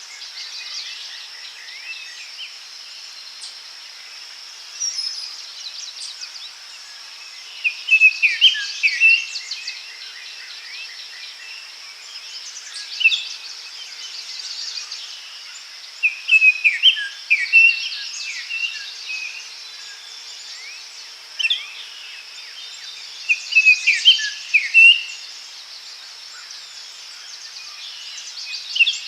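Forest ambience: several birds singing and chirping over a steady high-pitched insect buzz, with loud song phrases returning every few seconds.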